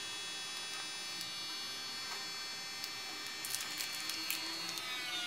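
Countertop vacuum sealer's pump motor running with a steady buzzing hum as it draws the air out of a plastic bag. The bag crackles briefly a little past the middle, and the pump's tone changes near the end.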